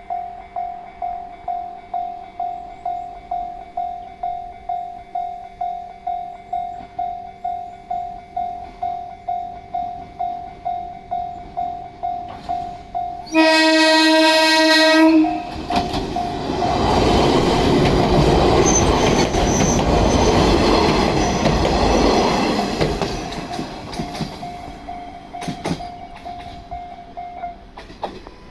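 Level crossing bell ringing steadily at about two strokes a second. About thirteen seconds in, a 115-series electric train sounds its horn in one loud blast of about two seconds. The train then runs past over the crossing, loudest for several seconds and then fading, while the bell keeps ringing until near the end.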